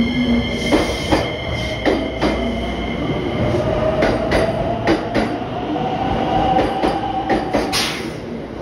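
Electric commuter train pulling out of the platform and gathering speed. Its motor whine rises steadily in pitch, and its wheels knock over rail joints, mostly in close pairs of beats.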